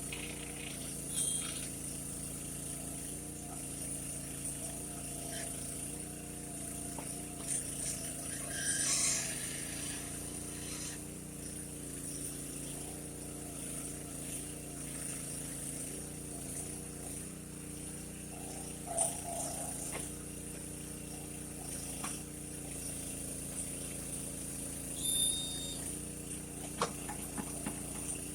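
Small engine running steadily to drive a homemade mini backhoe's hydraulics, its pitch shifting a little from time to time, with a few short scrapes and knocks as the bucket digs into the soil.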